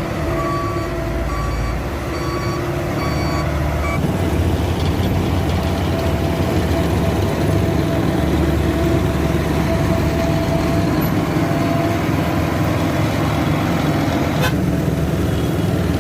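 Heavy diesel engines of asphalt paving machinery running steadily, with a reversing alarm beeping repeatedly for the first four seconds.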